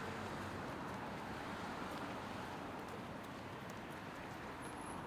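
City street ambience: a steady murmur of crowd and traffic, with footsteps on pavement.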